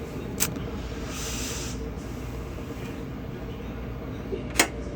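Steady low hum with two light clicks and a brief soft hiss about a second in, while a soldering iron heats a solder bridge being laid across a fuse on a washing machine's control board.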